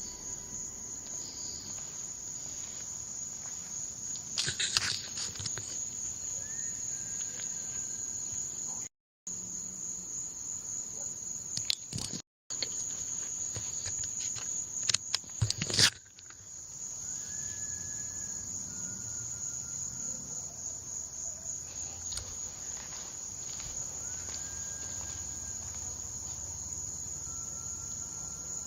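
Crickets chirring steadily at night in a high, even band, with a few faint short whistle-like tones several times in the second half and scattered rustling and handling clicks. The sound cuts out completely twice for a moment near the middle.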